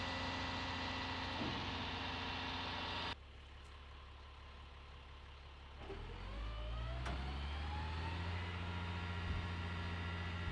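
M142 HIMARS launcher truck running with a steady low drone. About three seconds in the sound cuts abruptly to a quieter hum; from about six seconds in a mechanical whine rises in pitch for a couple of seconds and the drone grows louder.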